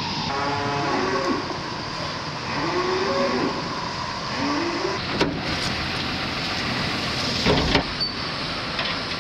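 Dairy cows mooing: three calls in the first five seconds over a steady background noise, followed by a sharp knock about five seconds in and a heavier thud a couple of seconds later.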